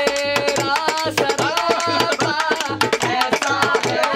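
A dholak hand drum beaten in a fast, even rhythm while a voice sings a melody over it.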